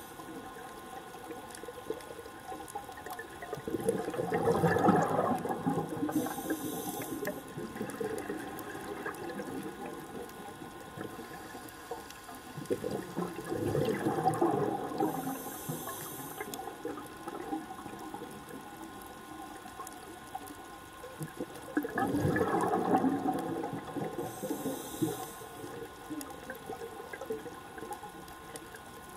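Scuba regulator breathing underwater, three breaths about nine seconds apart. Each is a bubbling, gurgling exhalation lasting a couple of seconds, followed by a short high hiss of inhalation through the demand valve.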